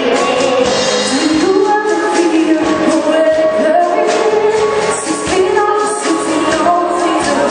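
A young vocal group singing a pop song, with full instrumental backing.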